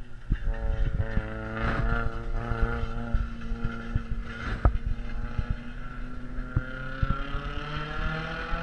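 Race car engines lapping the track. The engine note wavers, then climbs steadily over the last couple of seconds as a car accelerates, while wind thumps against the microphone.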